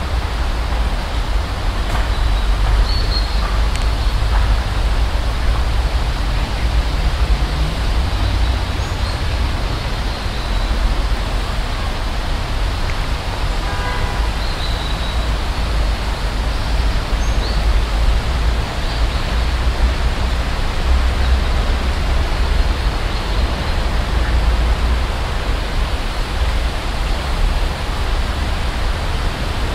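Steady outdoor noise with a heavy low rumble: wind buffeting the camera microphone mixed with road traffic. A brief pitched tone sounds about halfway through, and a few faint high chirps come and go.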